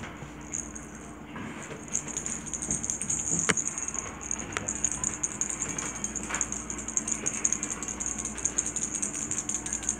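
A small jingling cat toy shaken by hand, a rapid steady rattle that gets stronger about two seconds in, with a few light knocks along the way.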